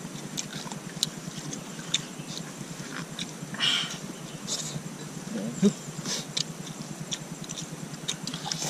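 People eating with their hands: small wet clicks and mouth sounds from chewing and picking up rice, with a short rustle a little after three and a half seconds.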